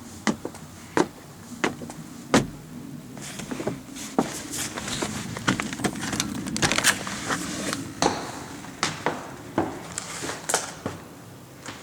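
Footsteps on a hard surface, evenly spaced at a walking pace for the first couple of seconds. Then several seconds of rustling and clattering handling noise, and a few more scattered knocks near the end.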